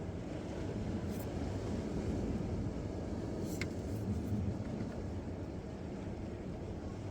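Steady low rumble of wind buffeting the microphone over the wash of the sea, with two faint clicks about one and three and a half seconds in.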